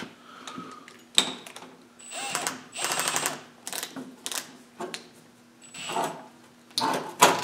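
Cordless drill run in several short bursts, each with a rapid clicking rattle over a thin high motor whine.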